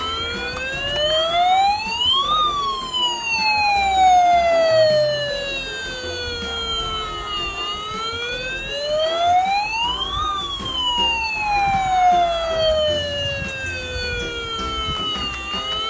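Fire truck siren in a slow wail: the pitch rises for a couple of seconds, falls slowly for about five, and repeats, peaking twice.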